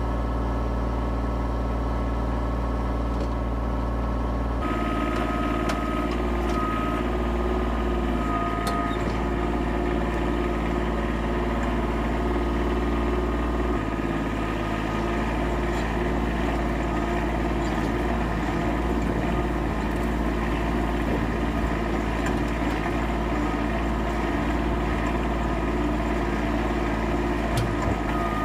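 Kubota tractor engine running steadily, idling while the tractor stands and then under way across the field; its sound changes abruptly about five and fourteen seconds in.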